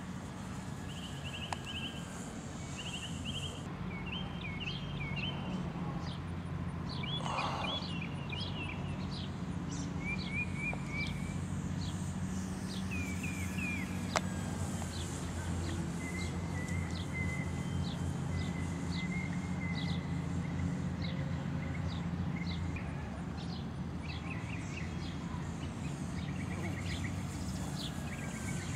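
Many short bird chirps and trills over a steady low drone that swells slightly in the middle.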